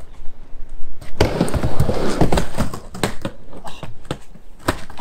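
Skateboard riding: wheels rolling with a rushing noise and a run of sharp clacks and knocks from the board, getting loud about a second in.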